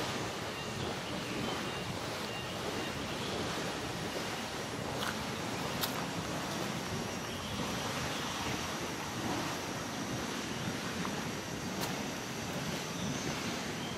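Steady rushing noise, even and unbroken, with a few faint clicks about five, six and twelve seconds in.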